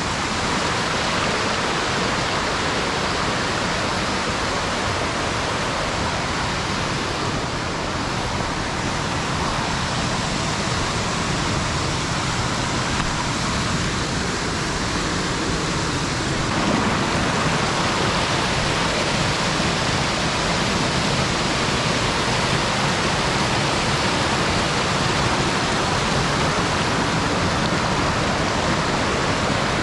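Rushing white water, a steady, even rush of falling or tumbling mountain water with no breaks.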